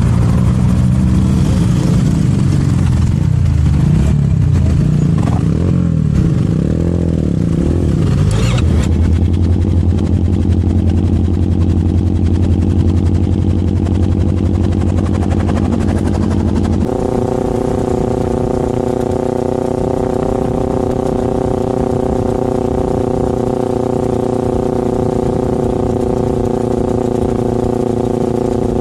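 Sport motorcycle engine running while riding, its note shifting through the first half. About two-thirds of the way through it changes abruptly to a steady engine note held at constant revs.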